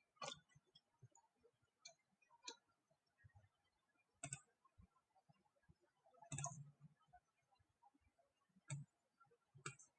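Faint computer mouse clicks, about seven spaced irregularly, the loudest about six and a half seconds in with a dull low knock, over quiet room tone.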